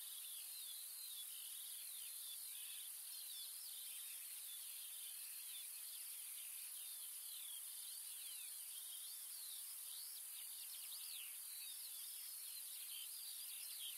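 Faint countryside ambience: many small birds chirping in quick, high, sweeping notes over a steady hiss.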